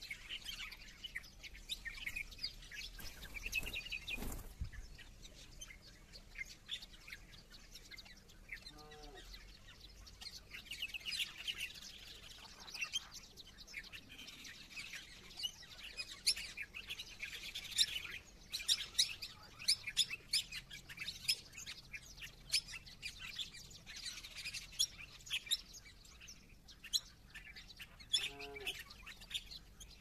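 Many small songbirds chirping and twittering in a busy, overlapping chorus. A short, lower call breaks in twice, and there is a soft thump about four seconds in.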